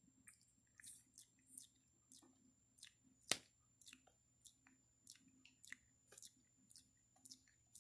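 Faint, irregular clicks and smacks, a few a second, from a long-tailed macaque grooming a person's hair with its fingers and mouth, with one sharper click about three seconds in.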